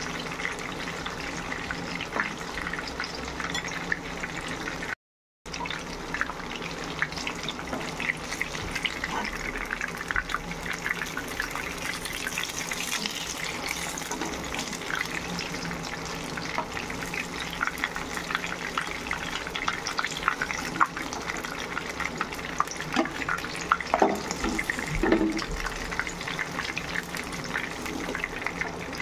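Masala-coated fish pieces shallow-frying in hot oil in a pan, a steady sizzle full of dense crackles and pops. The sound cuts out for a moment about five seconds in.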